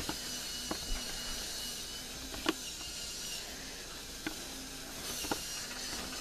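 Battery-powered toy train running on its plastic track: a faint steady motor whir with a handful of sharp clicks, the loudest about halfway through.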